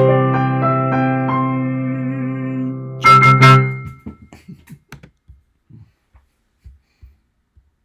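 Digital piano playing the closing chords of a song: a held chord with a couple of higher notes added, then a final chord struck about three seconds in that stops about a second later. A few faint clicks and knocks follow.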